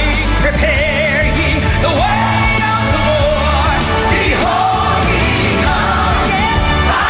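Live gospel worship music: a woman's solo voice sings with wide vibrato into a handheld microphone over a band with a strong, steady bass.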